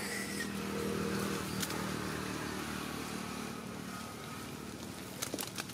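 An engine running steadily, its hum fading out a few seconds in, followed by a few sharp clicks near the end.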